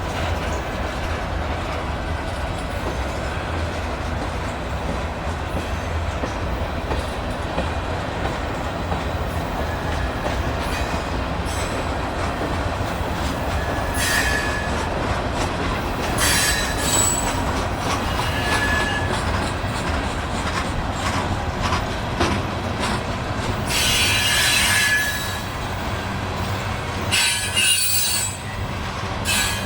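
Union Pacific freight train of covered grain hopper cars rolling slowly past: a steady rumble of steel wheels on the rails, with wheel squeals several times, mostly in the second half.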